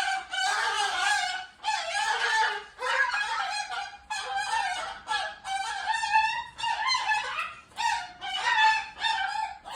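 Cockatoo screaming: a long, unbroken run of harsh, raspy calls, roughly one a second.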